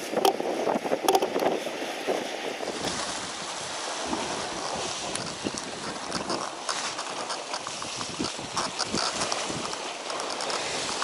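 Sea water washing and splashing against shore rocks: a steady rush with many small sharp splashes through it.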